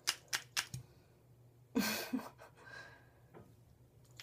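Lips smacking three times in quick succession, spreading freshly applied lip gloss, then a short breathy sound about two seconds in.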